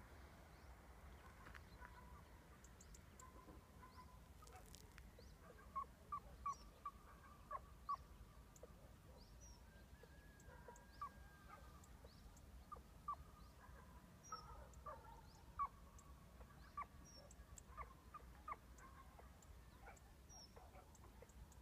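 Faint, distant hunting hounds giving tongue on a hare's scent: scattered short yelps in irregular clusters, with an occasional longer drawn-out bay.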